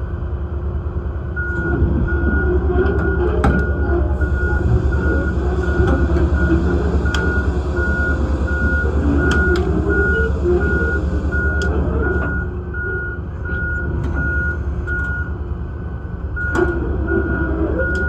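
Large excavator's engine running with a steady low drone while its travel alarm beeps in an even series, dropping out briefly near the end. A few sharp metal clanks now and then.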